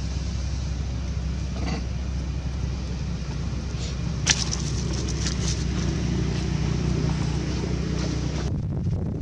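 Steady low outdoor rumble, with a single sharp click about four seconds in and a few brief rustles after it.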